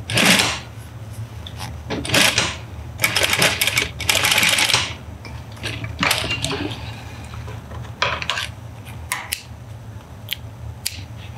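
Industrial lockstitch sewing machine stitching pleats into terry towelling in three short bursts of rapid rattling, over the steady hum of its motor. Later come a few short sharp clicks of scissors snipping the threads.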